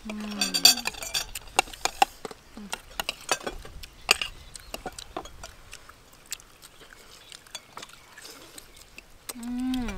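Eating sounds: chewing and lip smacks on chicken and rice, with scattered sharp clicks of spoons against plates. A short voice is heard at the start and another near the end.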